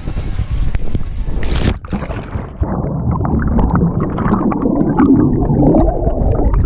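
A splash about a second and a half in, then muffled churning and bubbling water heard through a submerged microphone.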